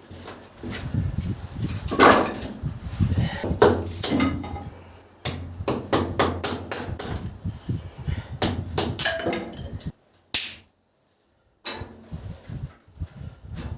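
Repeated hard knocks and strikes at an uneven pace, broken by a sudden silence of under two seconds a little after halfway, after which the knocking resumes.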